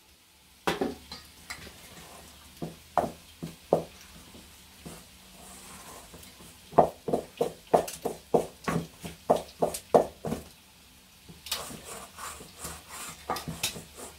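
Metal spoon stirring bread dough in a stainless steel bowl: repeated knocks and scrapes of the spoon against the bowl, a few at first, then quick and regular at about three or four strokes a second.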